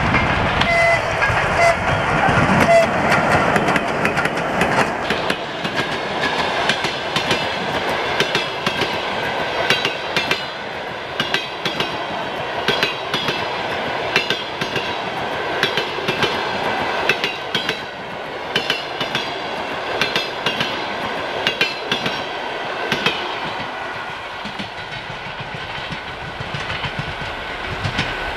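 Passenger train passing at speed behind a ChS7 electric locomotive. It is loudest in the first few seconds as the locomotive goes by. Then comes a long run of carriages whose wheels click steadily over the rail joints, easing off slightly towards the end.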